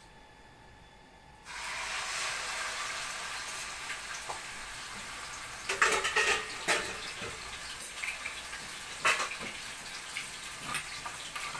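Strips of raw beef liver hitting hot frying oil: a sudden, steady sizzle starts about a second and a half in, with sharp crackling spatters through it.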